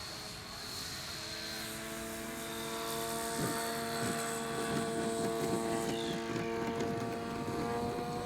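Radio-controlled scale model warplane flying overhead: a steady propeller drone that rises slightly in pitch and grows louder about three seconds in as it approaches.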